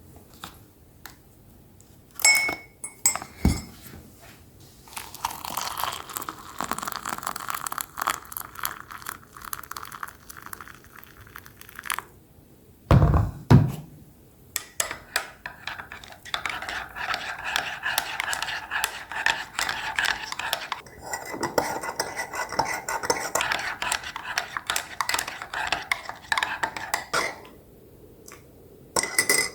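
Dishes and cutlery being handled in a kitchen: a few ringing clinks, two dull thuds about halfway through, and long stretches of busy clattering.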